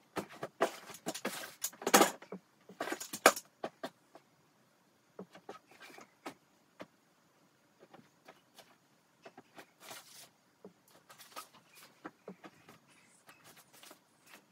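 Clothes and packaging rustling and crinkling as they are handled and pressed into a suitcase. A dense run of loud rustles fills the first three and a half seconds, then quieter scattered rustles follow.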